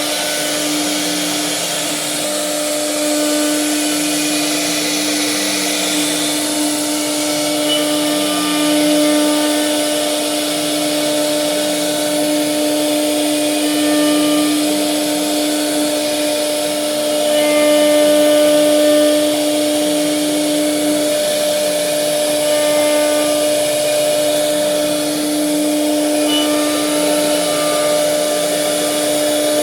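CNC wood router running, with a steady spindle whine and a lower motor whine that rises and falls every second or two as the machine moves along its cutting path.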